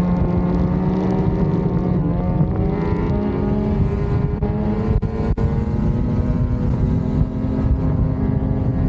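Lynx Shredder RE snowmobile's turbocharged 850 two-stroke engine, breathing through a Jaws trail muffler, running under way on the trail. Its pitch dips slightly about two seconds in, then climbs gradually over the next few seconds as the sled speeds up and holds there.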